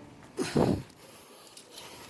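A person's short, loud huff of breath or grunt about half a second in, then quiet.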